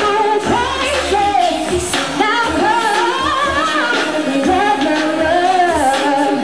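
A woman singing live into a handheld microphone, with long, wavering sung notes over a backing track with a steady low beat.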